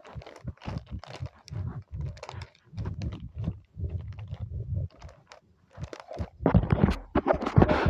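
Plastic packaging crinkling and rustling as hands squeeze a bagged slime toy, mixed with rubbing and knocking from the phone being handled; irregular crackles throughout, louder with low thuds in the last second or two.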